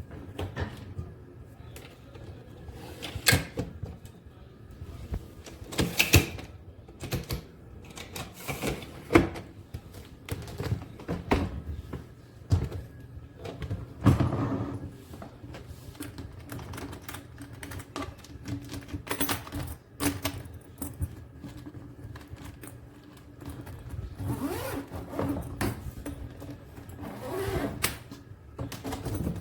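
Irregular clicks, knocks and thunks of an ABS hardside suitcase being handled, with a few louder knocks among them.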